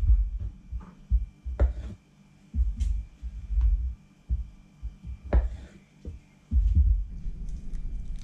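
Irregular dull thumps and bumps of cooked potatoes and a plastic tub being handled on the kitchen table, with a few sharp clicks, over a faint steady high whine.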